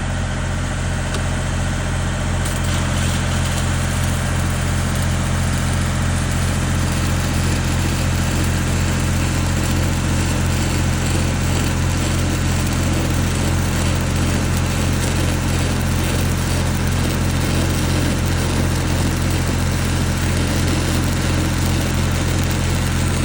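Stick (SMAW) welding: a steady low machine hum under a continuous crackling hiss from the arc, which firms up about two seconds in.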